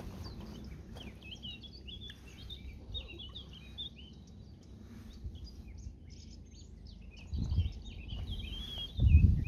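Songbirds singing: a steady stream of quick, high chirps over a low rumble, with low thumps about seven and a half seconds in and again near the end.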